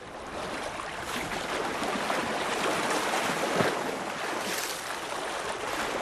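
A shallow stream rushing over rocks, a steady water noise that swells up over the first second.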